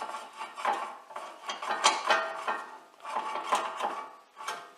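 Steel brake parts clinking and scraping as a Land Rover Discovery 3's loosened front brake caliper carrier is worked by hand against its rusty disc. Each knock rings briefly, about four times.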